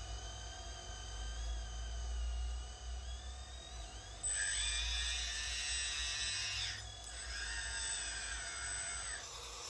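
Electric hydraulic pump of a radio-controlled model excavator whining as the machine works its arm. It runs in two bursts of about two and a half seconds each, the first starting about four seconds in, and the pitch rises as each starts and falls as each stops. A low steady hum lies under it.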